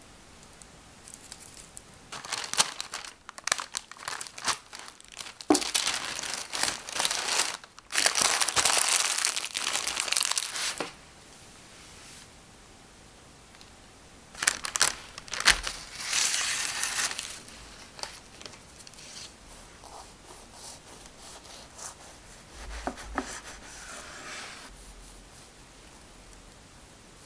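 Parchment paper crinkling and rustling as it is wrapped around a cream-filled roll cake, in several bursts, with the longest and loudest stretch near the middle.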